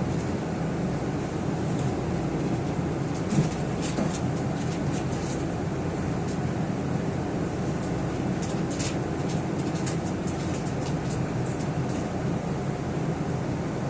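Passenger train running, heard from inside the carriage: a steady low rumble with scattered light clicks and rattles.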